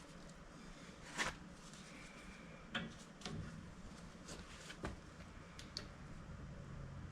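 A few scattered sharp clicks and knocks, the loudest about a second in, over the steady low hum of a dehumidifier running.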